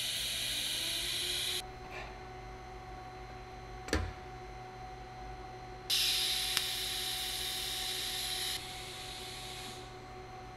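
TIG welding arc on stainless steel, heard as a steady hiss. It runs until about one and a half seconds in, then strikes again about six seconds in for roughly three seconds before dying down. There is a sharp click in the gap between the two arcs, over a low steady hum.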